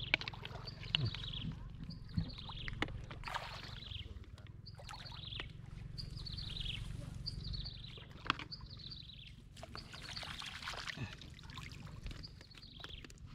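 An animal call, short and falling in pitch, repeated about once a second, over a low steady rumble with scattered knocks and rustles.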